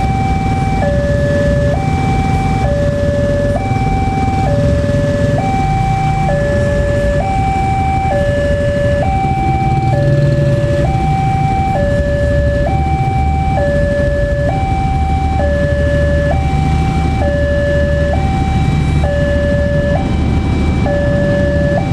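Railway level-crossing warning alarm sounding a steady electronic two-tone signal, a high tone and a low tone alternating about once a second: the crossing is closed for an approaching train. Beneath it, the low engine rumble of motorcycles idling at the lowered barrier.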